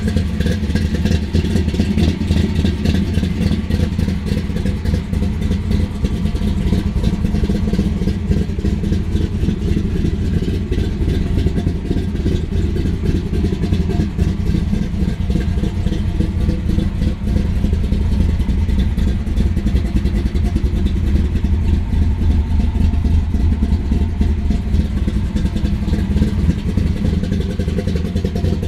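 1967 Chevelle SS's 496 cubic-inch big-block V8 idling steadily, a deep, rapid, even pulsing with no revving.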